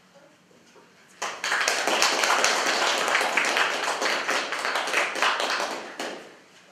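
Audience clapping, starting about a second in and dying away near the end.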